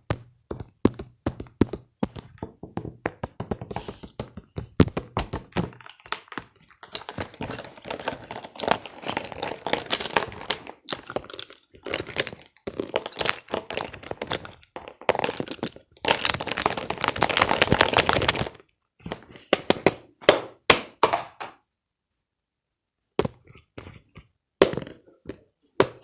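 A series of sharp knocks and cracks, with stretches of dense crackling in between and a brief pause near the end.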